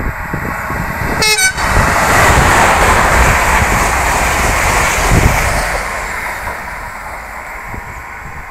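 Renfe Class 252 electric locomotive hauling a Talgo 6 train passing through the station without stopping: a short horn blast about a second in, then the rush of the train going by, loudest in the middle and fading near the end. Wind buffets the microphone throughout.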